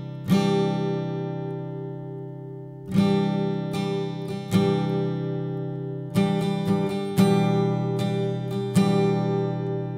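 Background music: acoustic guitar chords struck every second or two and left to ring out.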